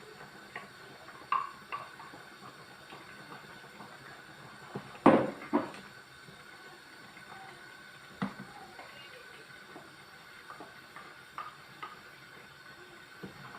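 A cooking pot and utensils clinking and knocking as ground spinach is added to a soup, a few scattered clatters with the loudest cluster about five seconds in.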